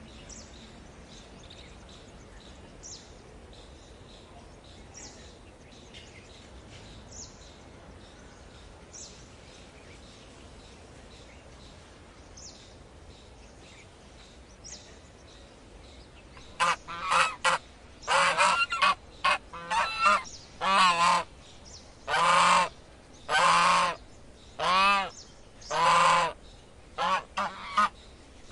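A faint, steady background with a few faint high chirps about every two seconds. Then, about two-thirds of the way in, a bird starts giving loud calls in rapid succession, one or two a second, some with a wavering pitch.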